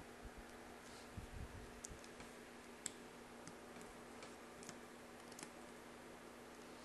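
Faint, scattered small clicks and a few soft low knocks of a screwdriver working the small screws out of an AR.Drone's plastic motor mount.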